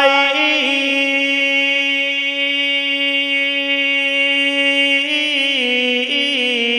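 A man singing a naat, holding one long steady note on the word "bewafai" for about five seconds. From about five seconds in the voice breaks into wavering ornaments around the note.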